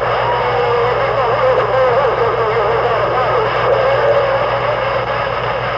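A pack of hounds baying in the distance, several voices overlapping in long, wavering bawls. Under them runs a steady low hum, like an idling vehicle engine.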